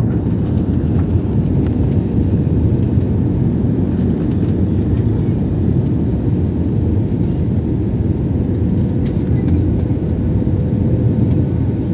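Airbus airliner cabin noise at a window seat: a steady, loud low rumble of the jet engines and rushing air, with a faint steady hum running through it.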